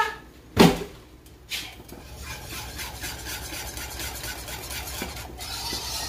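Wire whisk stirring thick Alfredo cream sauce in a metal saucepan: steady scraping and swishing from about two seconds in. A single thump comes just after the start.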